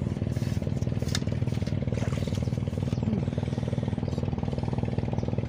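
A small engine running at a steady speed, with a fast, even pulse.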